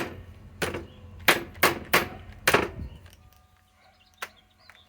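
Metal striking metal: about six sharp clangs at uneven spacing over the first three seconds, then one fainter knock about four seconds in, as something stuck is knocked at to free it.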